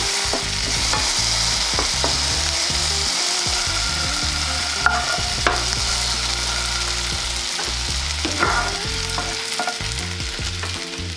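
Tofu cubes sizzling in vegetable oil in a non-stick frying pan, with light taps and scrapes of a wooden spatula as the cubes are turned and lifted out. The sizzle eases slightly near the end.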